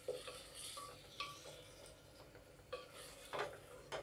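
A wooden spatula stirring wet, diced bottle gourd in a pressure cooker. There are faint scrapes and several light knocks of the spatula against the metal pot.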